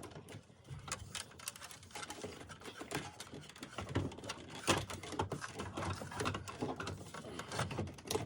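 Irregular clicking and rattling of plastic dashboard parts being handled, as trim and the instrument cluster are worked on by hand.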